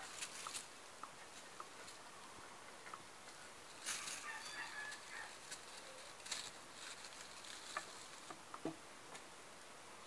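Kittens scuffling and pouncing on crumpled plastic sheeting: scattered crinkling rustles and light taps, with the busiest bursts about four seconds in and again around six seconds.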